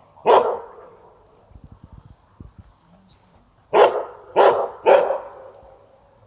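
A dog barking: one bark, then about three seconds later three barks in quick succession, about half a second apart.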